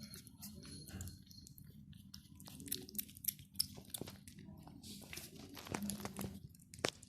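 Cats chewing, with irregular small crunches and clicks, busiest in the second half.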